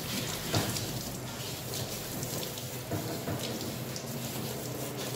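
Water from a handheld hose sprayer splashing steadily onto a Siberian husky's wet coat, with a brief knock about half a second in.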